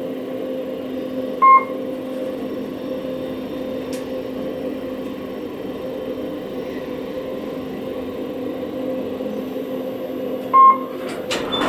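Passenger elevator travelling down, heard from inside the cab: a steady low hum with two short electronic chime beeps, one about a second and a half in and one near the end as the car arrives at the ground floor.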